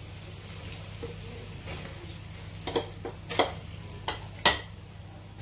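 Faint sizzling of oil on a hot non-stick tawa, with a few sharp clicks of a spatula against the pan in the second half.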